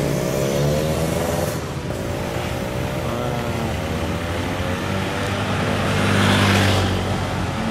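A bus's engine pulling away and accelerating past, its pitch rising twice as it climbs through the gears, loudest as it goes by about six seconds in.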